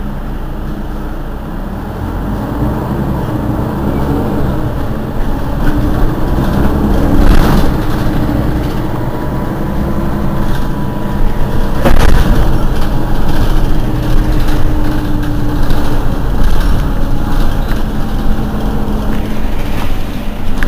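Mercedes-Benz Citaro city bus's rear-mounted diesel engine idling while the bus stands at a stop, a steady rumble that grows louder a few seconds in. Two brief sharp sounds cut through it, about seven and twelve seconds in, the second the loudest.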